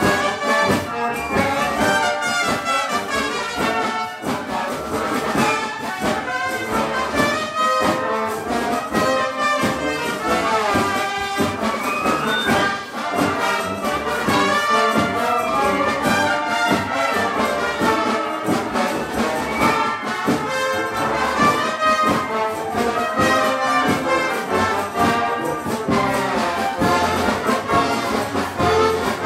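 Wind band playing, with trumpets and trombones to the fore over woodwinds; the music runs on without a pause.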